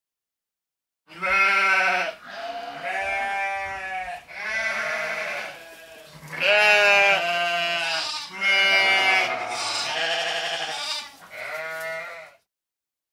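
A series of about seven quavering, goat-like bleats, each a second or so long. They begin about a second in and stop abruptly near the end.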